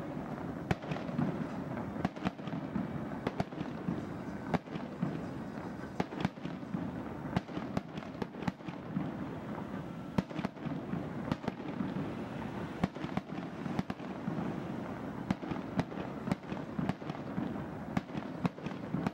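Fireworks going off continuously: a dense rumble of bangs with many sharp, irregular pops and cracks throughout.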